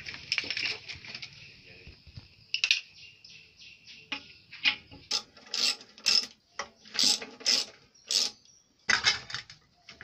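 Hand tools clicking and clanking on the cylinder-head bolts of an old belt-driven air compressor pump: an irregular run of short, sharp metallic clicks, some in quick runs.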